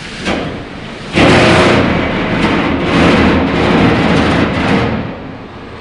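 Steam rushing and hissing through the 1856 Harvey & Co. Cornish bull pumping engine as its valve gear is worked by hand. A short puff comes first, then about a second in a loud hiss starts suddenly, wavers for about four seconds and dies down.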